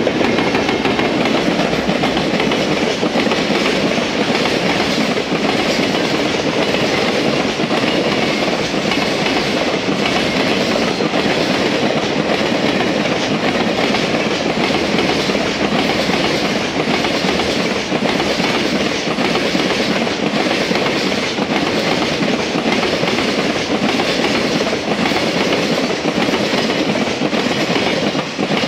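Container freight train's flat wagons rolling steadily past, wheels clattering over the rail joints.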